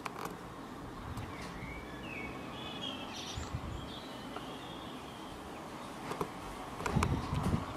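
Outdoor background with a bird calling a few short chirps in the first half. Near the end come several low knocks and rubs from the camera being handled.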